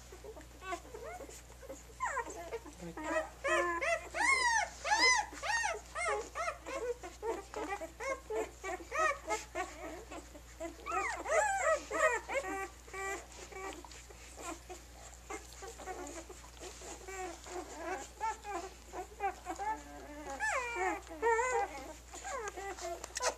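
Newborn German Shepherd puppies squeaking and whimpering as they jostle for teats to nurse: many short, high squeals that rise and fall, overlapping in busy clusters around four to six seconds in, near twelve seconds, and again near the end.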